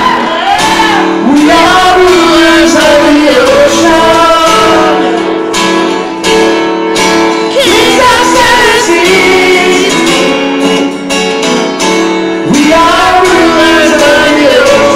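Live band music, loud: guitar and held chords under a singer's wavering melody line, in a large hall.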